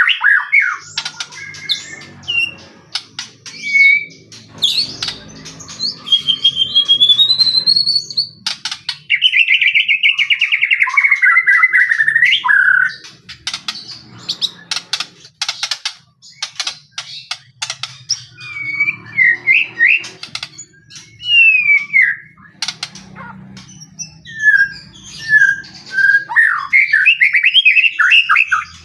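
White-rumped shama (murai batu) in full, vigorous song ('gacor'): loud, varied whistled phrases that rise and fall, with a buzzy trill about a third of the way in. Many sharp clicks run through the song.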